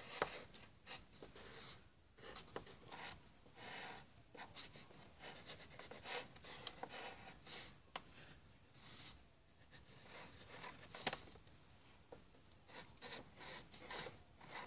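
Faint, irregular scratching of a pencil drawing on paper in quick strokes, with one sharper tick about eleven seconds in.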